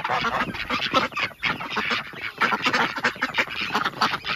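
A penned flock of domestic ducks and geese quacking and honking together, many calls overlapping without a break.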